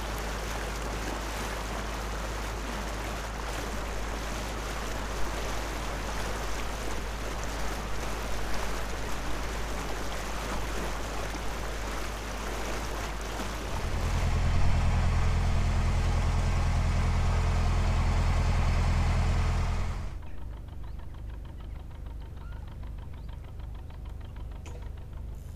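Narrowboat engine running steadily under way, with a steady hiss over it. About halfway through the engine becomes much louder and deeper for several seconds, then cuts back suddenly to a quieter, lower throb.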